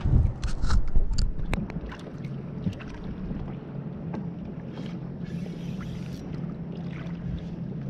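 Small outboard motor on a kayak running at a steady low hum. In the first couple of seconds wind buffets the microphone and there are a few sharp knocks and clicks of handling.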